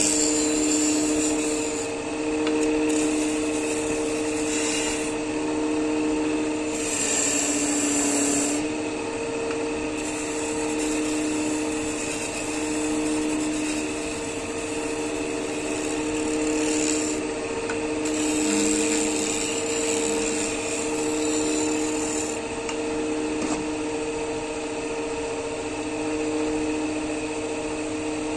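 Wood lathe motor humming steadily while a turning chisel cuts the spinning wood, with a scraping hiss that swells and eases as the tool is worked.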